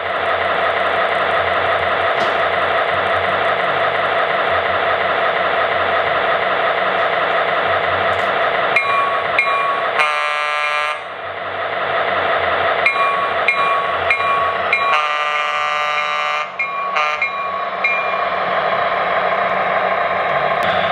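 MTH NW-2 switcher's Proto-Sound 3.0 diesel engine sound, running steadily through the locomotive's onboard speaker. From about 9 seconds in the locomotive bell rings, and the horn blows twice: a short blast about halfway through and a longer one about three-quarters through.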